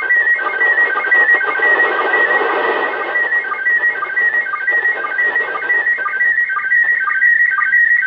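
Slow-scan TV signal from the International Space Station, received on 145.800 MHz FM and heard through the radio's speaker: a continuous warble of picture tones, broken by a short lower blip about twice a second, under a hiss of noise that swells in the middle. The signal is weak and hazy.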